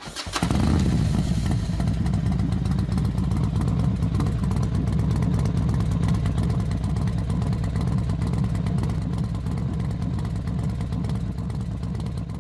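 Racing motorcycle engines running loudly in a steady low drone. It starts sharply about half a second in and eases slightly near the end.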